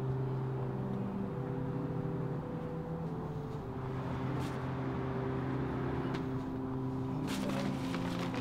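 Soft background music of slow, sustained low notes that step to new pitches every second or so, with a few faint clicks near the end.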